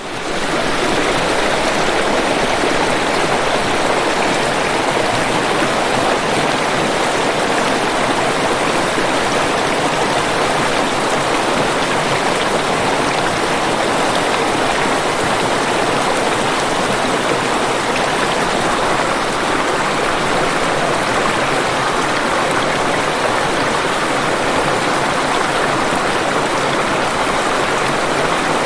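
Waterfall: a steady, even rush of falling water, coming up quickly from silence at the very start and then holding level.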